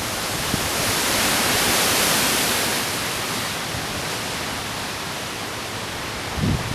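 Wind gusting through trees: a steady rushing hiss that swells about two seconds in and then slowly eases.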